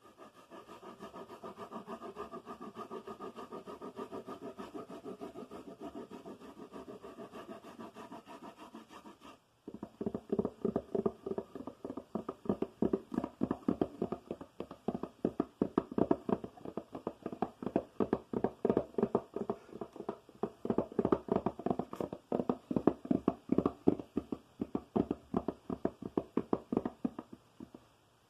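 Fingers tapping rapidly on a hard object. The taps run soft and closely packed for about the first third, stop briefly, then carry on louder and more distinct, several taps a second.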